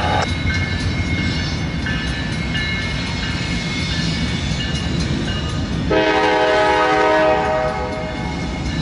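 Norfolk Southern diesel locomotive horn sounding one blast of about a second and a half near the end. Underneath are the low rumble of the approaching six-locomotive light-engine move and a grade-crossing bell ringing.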